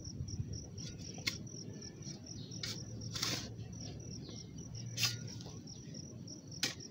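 Insects chirping in a steady, high-pitched pulsing trill, with a few short scrapes and knocks scattered through.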